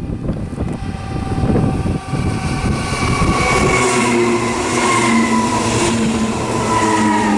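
A Class 423 S-Bahn electric multiple unit running as a double unit pulls in close alongside. A low rushing noise in the first few seconds gives way, about halfway through, to the whine of its electric traction drive in several tones that slowly fall in pitch as the train slows on its way into the station.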